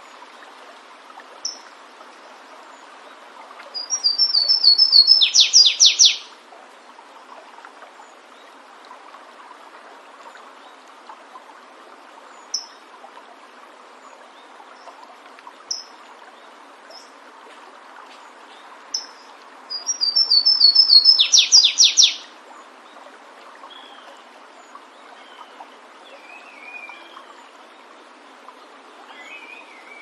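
Flavescent warbler (canário-do-mato, Myiothlypis flaveola) singing: two loud song phrases about fifteen seconds apart, each a quick run of repeated high notes ending in a short dense burst. A few short chirps fall between the phrases, over the steady rush of a stream.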